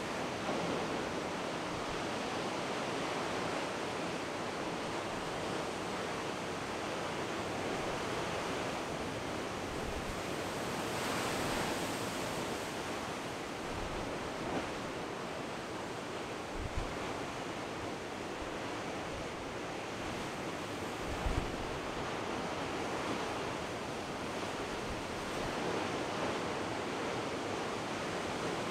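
Heavy storm surf breaking on a rocky shore: a continuous wash of surf with one louder crash of spray about eleven seconds in. Wind buffets the microphone with a few low thumps in the second half.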